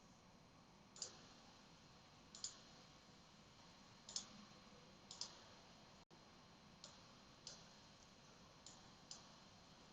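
Computer mouse clicking: about a dozen sharp, short clicks at irregular intervals, several in quick pairs, over faint room hiss.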